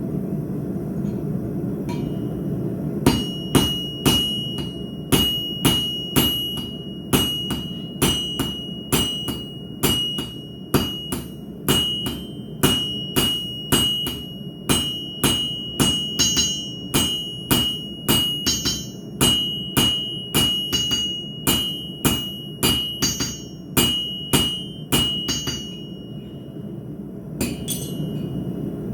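Blacksmith's hammer striking hot steel on an anvil, about two blows a second for some twenty seconds, each with a bright ringing tone. One last blow comes near the end, and a steady low rushing noise runs underneath throughout.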